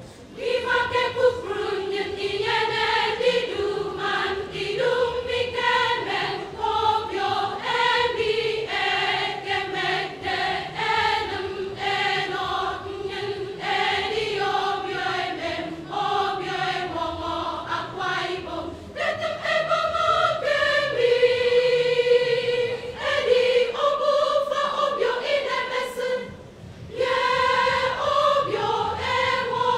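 Mass choir singing together, coming in about half a second in, with a brief pause near the end before the voices resume.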